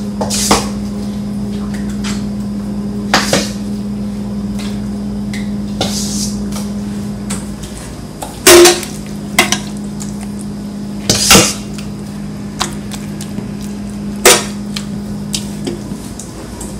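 Kitchen clatter of dry oven-ready lasagna noodles and utensils knocking against a baking pan: scattered sharp clicks and knocks, the loudest about eight and a half seconds in, over a steady low hum.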